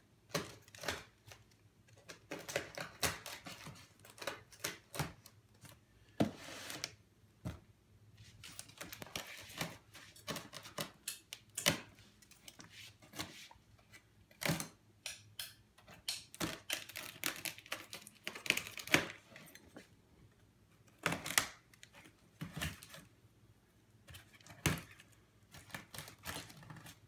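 Plastic wrap and packing straps being pulled and cut off a cardboard box: crinkling and rustling in several stretches, with many sharp clicks and snaps throughout.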